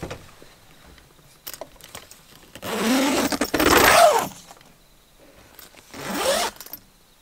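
A zipper pulled twice: a long pull about three seconds in and a shorter one near the end, with light clicks and fabric handling around it.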